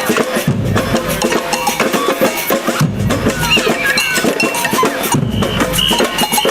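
Samba band drumming, a dense steady rhythm of drums with a cowbell beat.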